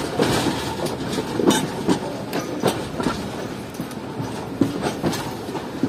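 Pak Business Express passenger train running, its wheels clattering over rail joints and the junction's points in sharp, irregularly spaced knocks over a steady rumble and hiss.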